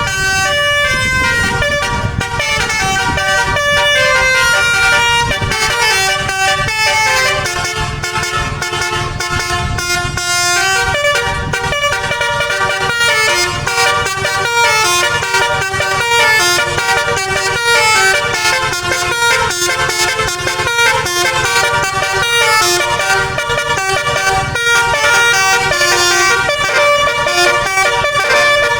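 Basuri musical bus horn, with roof-mounted horn trumpets driven by a DAV tone module, playing a running melody of short stepped notes, often several horns sounding together, without a break.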